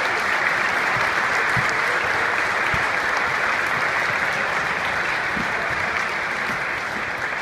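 A crowd applauding, a steady dense clatter of many hands clapping that eases slightly near the end.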